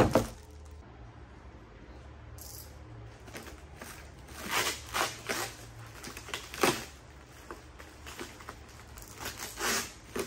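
Plastic stretch wrap crinkling and tearing in irregular bursts as it is pulled off a wrapped hydraulic pump unit, with a sharp knock at the very start.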